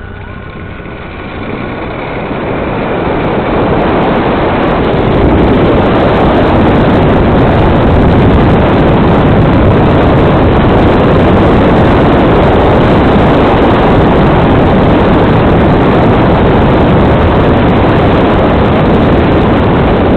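Loud steady rushing noise of a zipline ride: wind on the camera's microphone and the trolley running along the steel cable. It builds over the first five seconds and then holds steady.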